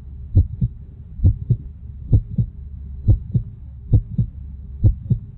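Heartbeat sound effect: paired low thumps, lub-dub, about six beats evenly spaced a little under a second apart, over a low steady hum.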